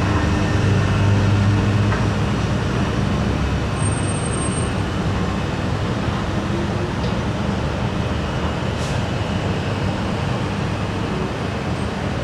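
Downtown city traffic: a steady mix of vehicle engines and road noise with a low rumbling hum, a little louder in the first couple of seconds.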